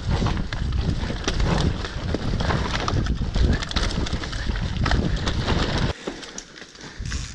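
Mountain bike running fast down a dirt trail: a dense rumble of tyres on loam with rattling knocks from the bike, mixed with wind noise on the camera microphone. The rumble cuts off suddenly about six seconds in, leaving quieter trail noise with a few clicks.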